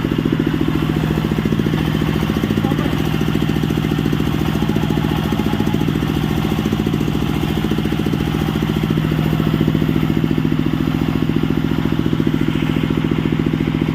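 Engine of a newly built circular sawmill machine running steadily at a constant speed during its first running test, just after an electric start.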